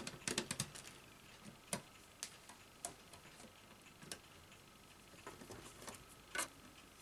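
Sporadic light clicks and taps of small metal parts and a screwdriver being handled on an opened Betamax video recorder's metal cassette carriage. A quick cluster of clicks comes at the start, then single clicks, the loudest near the end.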